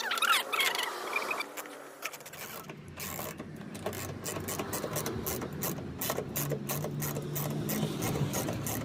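Ratchet wrench clicking in fast runs as a mud flap mounting bolt is tightened, starting about two seconds in, with a steady low hum underneath.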